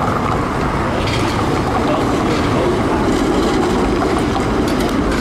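TTC Flexity streetcar passing at close range: a steady rolling rumble with a few sharp clicks spaced about a second apart.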